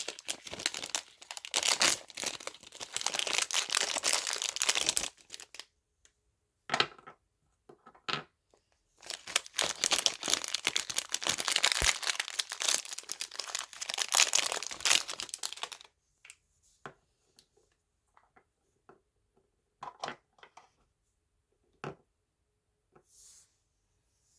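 Toy packaging being torn open and crinkled by hand, in two long stretches. Near the end it gives way to a few scattered light clicks and taps.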